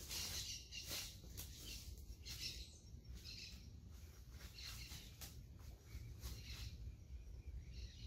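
Faint footsteps crunching through dry leaf litter, an irregular crackle of steps about one every half second to a second that thins out as the walker stops, over a steady low rumble of outdoor background noise.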